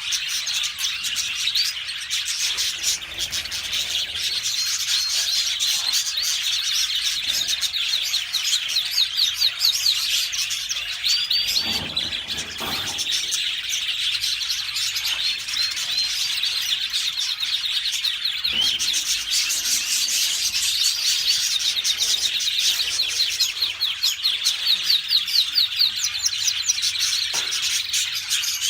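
Domestic canary singing a long, continuous song of rapid trills and chirps.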